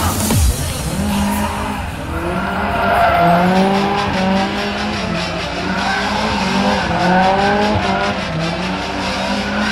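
Car engine revving hard while drifting, its revs climbing and dropping about once a second, with tyres squealing as the car slides.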